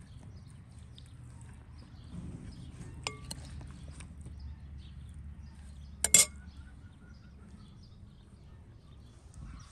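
Sharp clink of a metal spoon against a glass mixing bowl about six seconds in, with a smaller clink near the three-second mark. Soft handling noise runs under it as a raw duck is stuffed with fruit pieces, over a low steady rumble.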